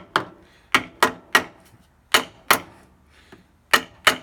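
Hammer tapping on a stuck exhaust valve of an Allis-Chalmers Model B engine to free it: about eight sharp blows, several in quick pairs.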